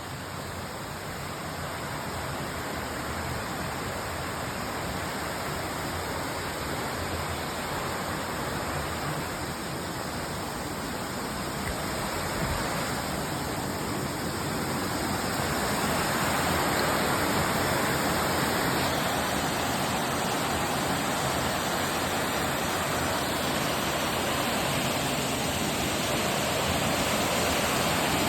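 A cave waterfall's falling water making a continuous, steady rush that grows louder about halfway through.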